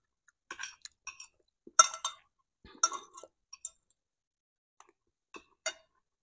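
Metal spoon and fork clinking against a ceramic plate: a scatter of light, short clicks, the sharpest about two and three seconds in.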